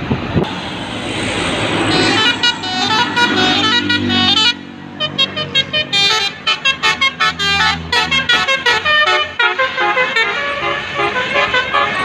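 Indonesian bus "telolet" basuri musical air horn playing a tune of short stepped notes, starting about two seconds in over the noise of a passing bus, with a quick run of staccato blasts in the middle.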